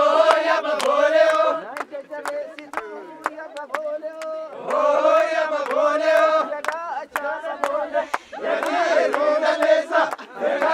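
A group of voices chanting and singing together, in phrases about two seconds long, with frequent sharp percussive hits throughout.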